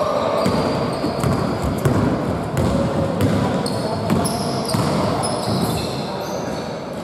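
Basketball dribbled on a wooden gym floor amid players' running footsteps, with short high-pitched sneaker squeaks on the court a few seconds in, all echoing in a large hall.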